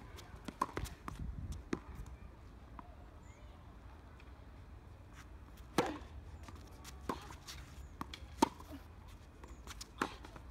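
A tennis rally on a hard court: sharp racket strikes and ball bounces about a second or two apart, the loudest from the near player's shots about six and eight seconds in.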